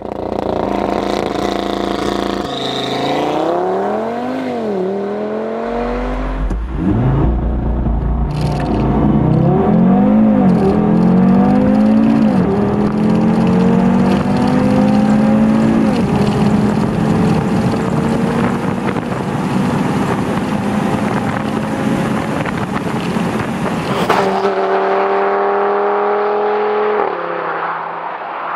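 Audi TT-RS's turbocharged five-cylinder engine under hard acceleration: its pitch climbs through each gear and dips quickly at every upshift, then rises more slowly in the higher gears. Near the end, after a sharp click, the engine holds a steady pitch before fading out.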